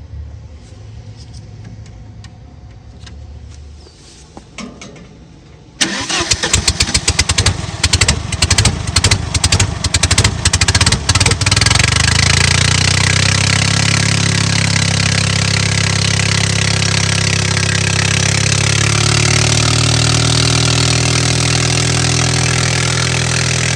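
Bobcat 732 skid steer engine catching about six seconds in, firing unevenly in rapid pops for several seconds, then settling into a steady run with a couple of slight shifts in pitch. A low hum sits under the first few seconds.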